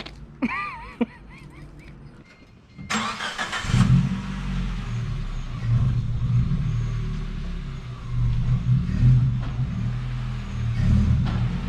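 Two short high squeaks, then about three seconds in a car engine is started and runs, its level rising and falling.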